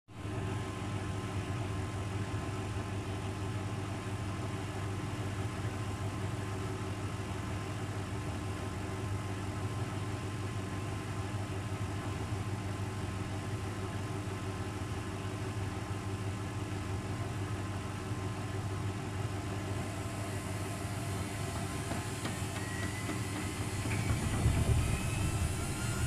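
Luxor WM 1042 front-loading washing machine's drum motor humming steadily as it turns the laundry at low speed, then, from a few seconds before the end, a rising whine as the drum speeds up into its spin. A low rumble swells near the end as the load, which is unbalanced, starts to shake the drum.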